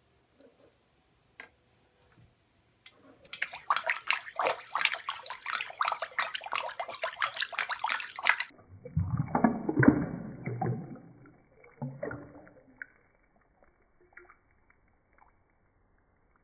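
Water splashing into a ceramic bathroom sink for about five seconds, then a lower gurgling as the basin drains down the plughole, which dies away over a few seconds.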